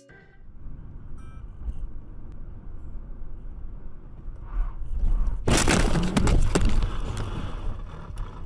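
Dashcam recording from inside a moving car: steady low road and engine rumble, then a sudden loud collision about five and a half seconds in, followed by about two seconds of clattering and cracking that dies away.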